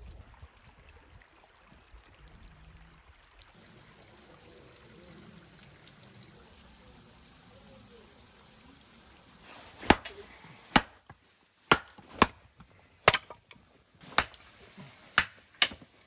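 Hatchet chopping firewood: about eight sharp strikes of the blade into the wood, at uneven intervals over the last six seconds, after a stretch of faint quiet ambience.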